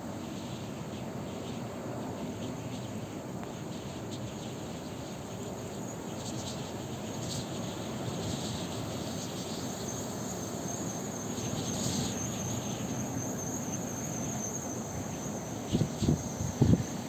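Blizzard wind blowing steadily. A faint, wavering high whine joins it from about halfway, and a few dull low thumps come near the end.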